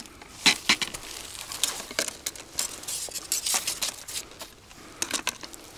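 Plastic ice-fishing tip-ups and a plastic bucket of gear being handled: an irregular run of short clicks, knocks and crinkling rustles.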